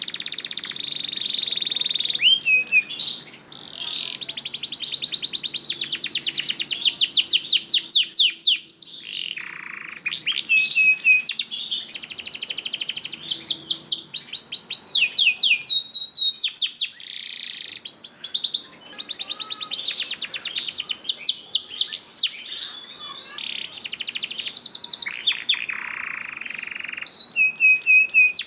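Domestic canary singing a long, continuous song of fast trills, rapidly repeated sweeping notes and held buzzy rolls, with only short pauses between phrases.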